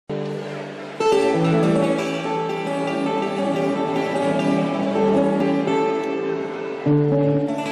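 Live music from a small ensemble with guitars and a smaller plucked string instrument, playing held notes; the music fills out and gets louder about a second in, and changes to a new louder chord near the end.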